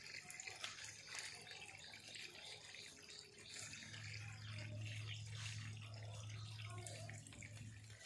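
Water splashing faintly from a hand pump's spout onto the platform below, with a low steady hum joining about halfway through.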